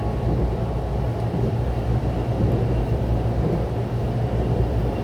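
Steady low rumble of a Mugunghwa-ho passenger train running along the track, heard from inside the carriage.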